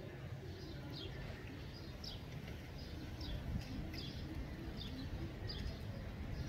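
A small bird chirping over and over in short, falling notes, about one every half second to a second, over a steady low background rumble.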